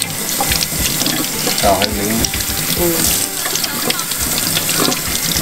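Kitchen faucet running into a stainless steel sink, a steady stream of water splashing over hands as they rub and rinse a peeled vegetable.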